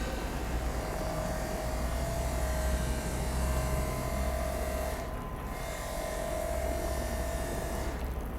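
Electric motors of an animatronic dinosaur running with a steady low hum and a whine, stopping briefly about five seconds in and starting again.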